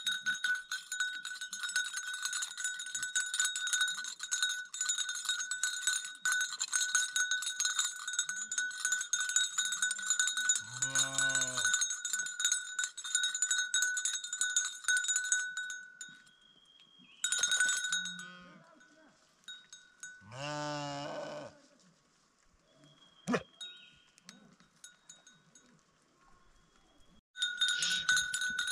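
Bells worn by a flock of sheep jingling steadily, with clear ringing tones in the clatter, for the first half; after that they ring only in short spells. Two long bleats come from the flock, one about a third of the way in and one past the middle.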